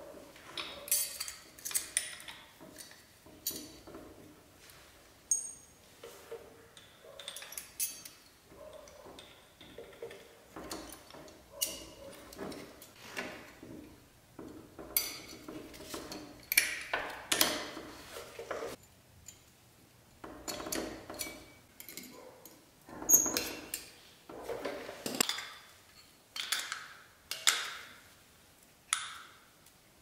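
Irregular metallic clicks, clinks and knocks from hands working on a 2016 Yamaha R6's front brake caliper, its pad hardware and hand tools during a brake pad change, some with a short ring.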